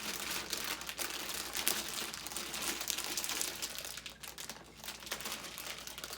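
Crinkling of a candy package being handled, with dense crackling that eases briefly about two-thirds of the way through and then picks up again.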